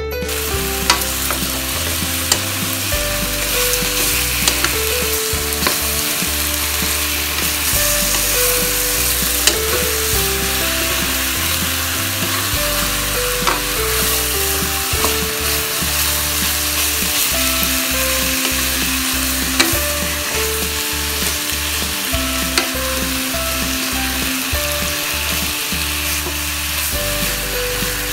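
Cubes of pork belly sizzling as they fry in a wok, stirred with a wooden spatula that now and then clicks against the pan. Quiet background music with stepping notes plays underneath.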